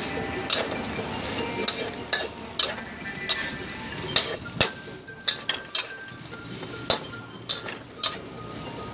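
Metal spatula scraping and clanking against a wok as noodles and vegetables are stir-fried, with a dozen or so sharp irregular strikes over the steady sizzle of the frying food.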